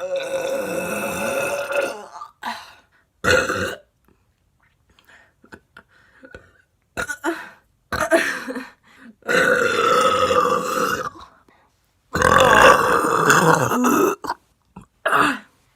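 A woman burping repeatedly: a string of about six belches, the longest drawn out to around two seconds, with short pauses between them.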